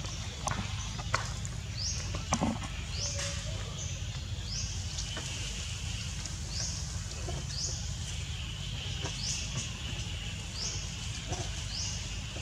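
Forest ambience: a high, rising chirp repeats about once a second over a steady low rumble, with a few sharp snaps and rustles of branches as monkeys climb, the loudest in the first few seconds.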